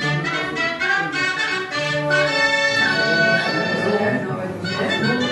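Music playing: a melody of held notes that change about once a second, over a steady low accompaniment.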